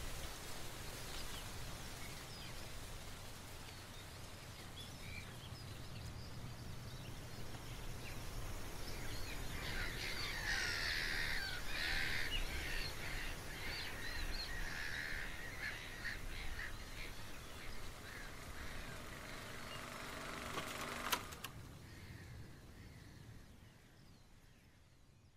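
Birds calling over a steady background noise, the calls busiest in the middle. Near the end there is a sharp click, and then the sound fades out.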